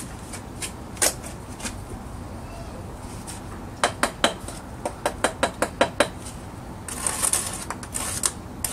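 Steel bricklaying trowel working a brick course. It gives a couple of sharp clicks, then a quick run of about ten taps midway, about five a second, as a brick is knocked down into its mortar bed. Near the end comes a scraping of mortar with the trowel.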